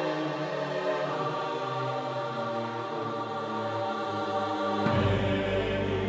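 Background music of slow, held chords with choir-like voices; a deeper low layer comes in suddenly about five seconds in.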